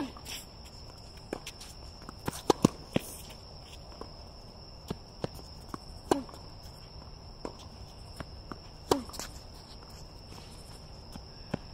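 Tennis rally on a hard court: rackets hitting the ball, ball bounces and footsteps, with the loudest hit a close forehand about six seconds in and another strong hit about nine seconds in. A steady high-pitched insect drone runs behind.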